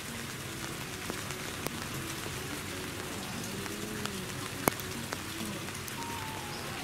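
Steady rain falling, with single drops ticking sharply on nearby surfaces; the sharpest hit comes about four and a half seconds in.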